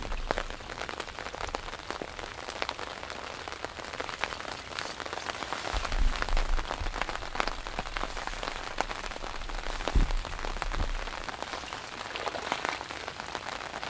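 Rain pattering steadily, with many sharp drop hits close by. A couple of louder low thumps come about six and ten seconds in.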